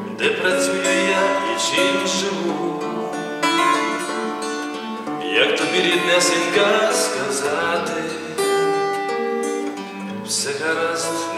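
Instrumental music on a plucked string instrument: strummed chords and plucked notes ringing over held tones.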